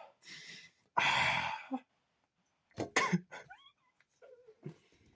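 A person coughing in short noisy bursts, the loudest about a second in, followed by a few short throaty grunts.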